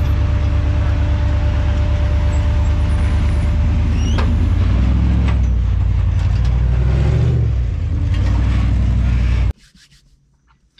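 Rock-crawling buggy's engine running steadily under load as it climbs a rock ledge, with a brief rising squeal about four seconds in. The engine sound cuts off suddenly near the end.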